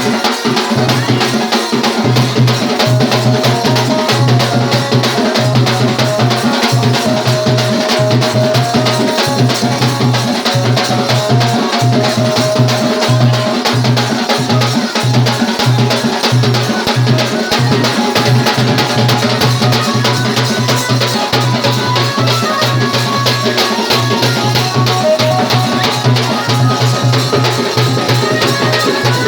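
Music for a Saura dance: drums and percussion keep a fast, steady beat under a held melody line, with a deep low note that drops out and returns over and over.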